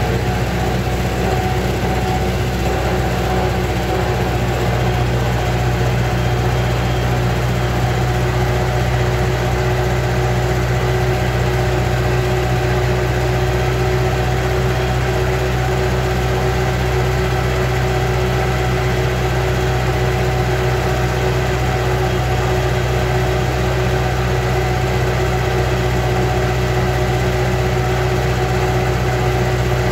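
Vintage tractor engine running steadily under way, heard from inside the cab: an even, unchanging deep drone.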